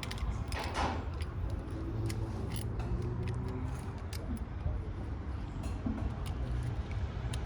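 Scattered light metallic clicks and clinks of tools and car parts being handled, with a short scrape just under a second in, over a steady low rumble.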